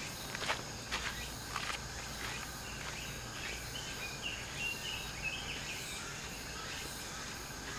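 Outdoor ambience: a steady high insect hum, with a few short bird chirps in the middle. A handful of sharp clicks or knocks come in the first two seconds.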